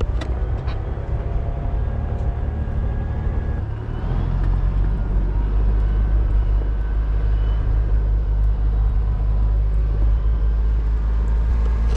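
A four-wheel-drive vehicle's engine and drivetrain running at low speed while it creeps downhill, a steady low rumble that grows a little louder about four seconds in.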